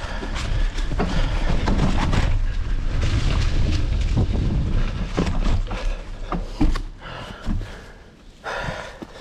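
Wind rumbling over the microphone, with scattered clicks and rattles, as a hardtail mountain bike is ridden along a trail. The rumble drops off about seven seconds in, leaving a few separate clicks.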